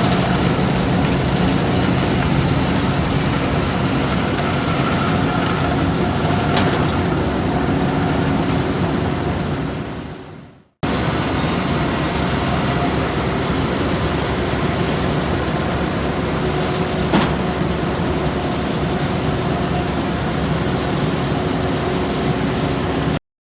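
Heavy road-paving machinery engines running steadily with a low, even drone. The sound fades out about ten seconds in, comes back abruptly, and cuts off suddenly near the end.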